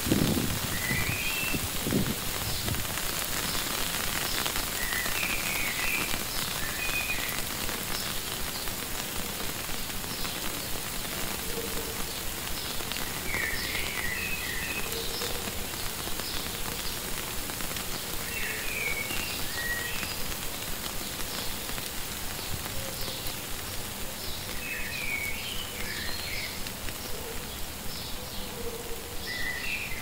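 Steady rain falling, with a small bird giving short chirpy phrases every five or six seconds. There are a few low thuds in the first two seconds.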